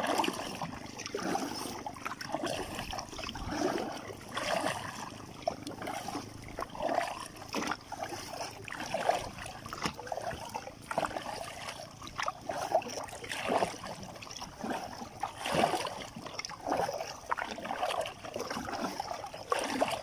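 Kayak paddle blades dipping and pulling through river water, a splashy swish with dripping every second or two, over a steady watery hiss.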